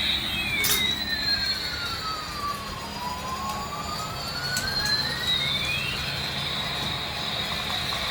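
Electronic toy vehicle's jet-engine sound effect played through a small speaker: a steady high whine over a low hum, with a tone that slowly sweeps down and then back up.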